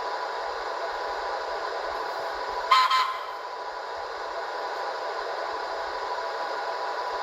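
MTH ProtoSound 2 model subway train running on three-rail track with a steady motor-and-wheel hum and a constant whine. A short horn toot sounds about three seconds in, and another begins at the very end.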